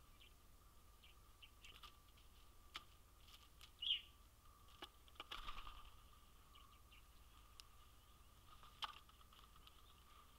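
Faint winter feeder ambience with a steady faint whine, scattered light clicks and taps, and one short bird call about four seconds in. There is a brief soft rustle shortly after the call.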